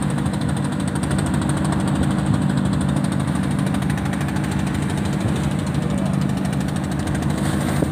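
Fishing boat's inboard diesel engine running steadily under way, a low even drone, with water rushing along the hull.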